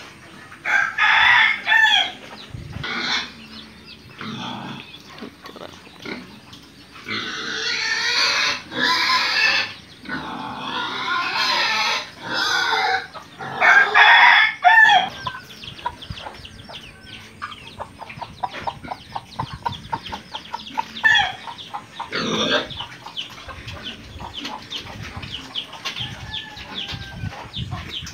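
Pigs and chickens in a pen: loud pitched calls through the first half, pig squeals and a rooster crowing among them, then a quieter stretch of pig grunts and many small clicks.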